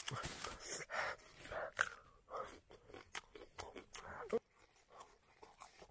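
A man chewing fruit close to the microphone, with short, irregular mouth sounds that fade out about four and a half seconds in.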